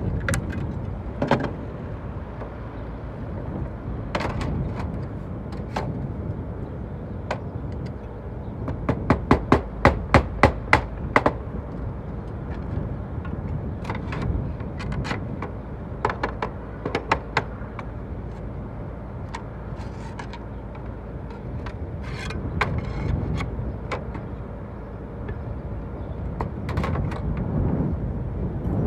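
Slater's hammer knocking on natural slates as they are fixed to a chimney. Sharp single taps come at intervals, with a quick run of about eight strikes some nine to eleven seconds in.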